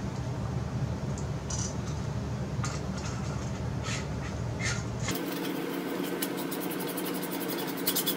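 Small clicks and scrapes of threaded metal telescope adapters being handled and screwed together by hand, over a steady low hum. About five seconds in the sound changes abruptly: the hum cuts out and a faint, evenly repeating high ticking takes over.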